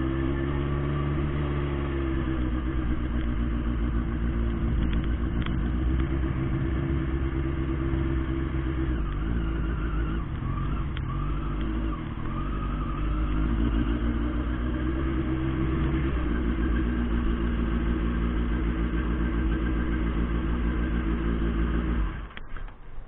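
Turbocharged 2006 Suzuki Hayabusa's inline-four engine running steadily, heard from a helmet camera, its pitch shifting a little. The sound cuts out abruptly near the end.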